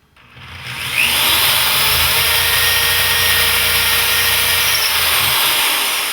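Power drill with a 9/32-inch bit boring the magnet hole into a wooden cabinet door, a depth sleeve on the bit to stop it short of drilling through. It spins up over the first second, runs steadily, then winds down near the end.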